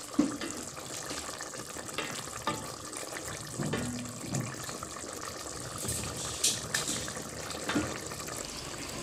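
Dinuguan broth bubbling in a stainless steel pot while a wooden spatula stirs and sloshes it, with a few light knocks of the spatula against the pot.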